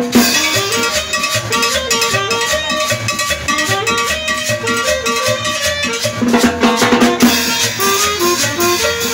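Live Latin dance music with a stepping melody over a steady beat, the scraping of a metal güira and hand drums keeping the rhythm.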